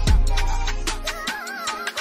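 Background music: a wavering melody line over deep bass notes that drop in pitch, with a steady beat.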